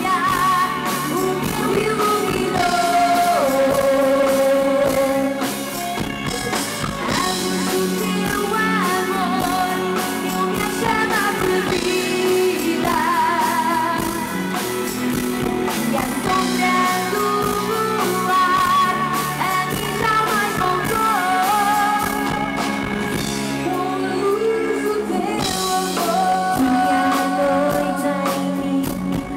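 Live band performance of Portuguese popular music with a woman singing lead into a microphone; her sung melody wavers with vibrato over the band.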